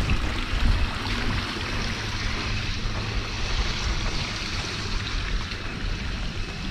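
Wind buffeting the microphone with an uneven low rumble, over a steady rushing hiss of open-air noise.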